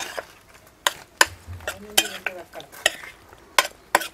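A metal spoon stirring chicken pieces in a thick curd-and-egg marinade in a bowl: a wet, squelching stir with several sharp clinks of the spoon against the bowl.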